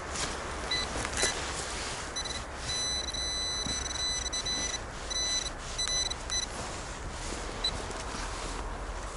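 Metal detector sounding its target signal: a steady high beep of one fixed pitch, in several short beeps and one longer tone of about two seconds in the middle. Under it runs a steady low rumble of road traffic and a hiss of wind.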